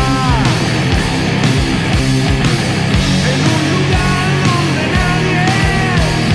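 Stoner rock song: loud heavy guitars, bass and drums with a steady beat, and a high melodic line whose notes bend and drop off at their ends.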